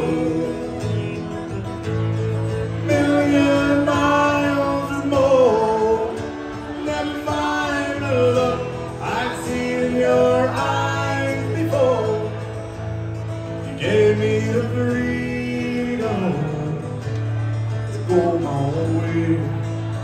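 Live country music: an instrumental break with strummed acoustic guitar under a wavering fiddle melody.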